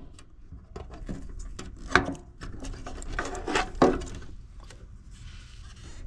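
Clicks, knocks and scraping as a metal-can 30/3 µF dual run capacitor is worked out of its mounting clip inside a PTAC unit's sheet-metal housing, with the sharpest knocks about two seconds and nearly four seconds in.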